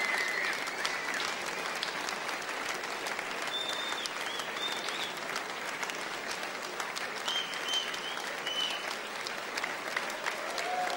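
Large concert audience applauding steadily, a dense patter of many hands clapping, with a few short high whistles from the crowd in the middle.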